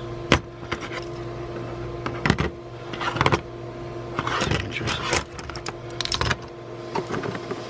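Metal clamps being handled, clinking and clattering in a string of sharp knocks, with a steady background hum.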